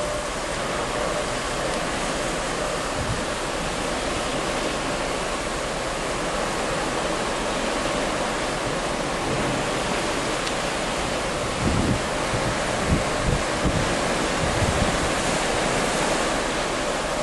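Steady rushing of wind and sea heard from a moving cruise ship's deck, with a faint steady hum under it. Several low wind buffets hit the microphone about twelve to fifteen seconds in.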